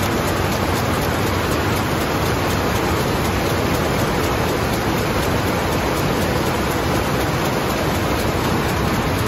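Pickwell 190 cm rapier loom weaving at high speed: a steady, dense mechanical clatter with a regular beat of about four strokes a second as the rapiers carry the weft and the reed beats up each pick.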